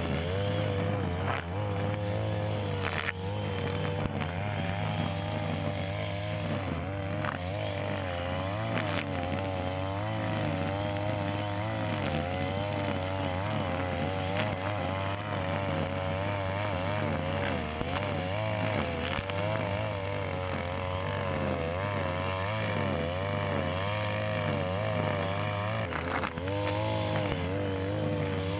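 Petrol brush cutter engine running steadily at high speed, its pitch wavering up and down as the load changes while it cuts grass.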